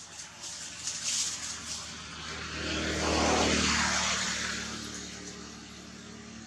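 A motor vehicle passing, its engine and road noise swelling to a peak about three seconds in and then fading away. Dry leaves rustle and scratch in the first two seconds as the monkeys scuffle on the ground.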